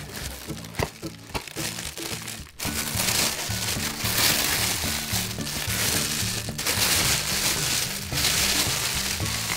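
Aluminium foil crinkling and rustling as it is pulled open by hand, over background music with a steady bass line. The crinkles are scattered at first and become a dense rustle from about two and a half seconds in.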